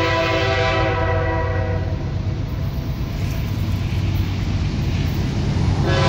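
Nathan Airchime K5H five-chime locomotive horn sounding a steady chord that stops about two seconds in and starts again just before the end. The low rumble of the moving train runs underneath.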